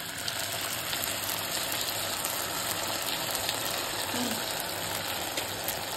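Sauce sizzling in a hot pan of oil-sautéed capsicum, onion, ginger and garlic as it is poured in: a steady hiss with a few faint crackles.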